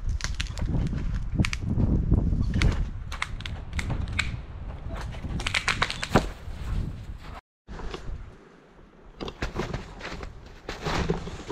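Small dead spruce tree cracking and snapping as it is pushed over and falls into the snow, dry branches breaking off in a run of sharp cracks. After a break about two-thirds of the way in, scattered snapping of twigs and crunching in the snow.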